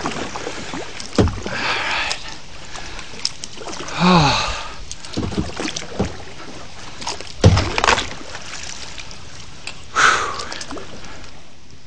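Kayak paddle strokes splashing and sloshing in shallow water, with the hull brushing through grass at the bank and a few sharp knocks, the loudest about seven and a half seconds in.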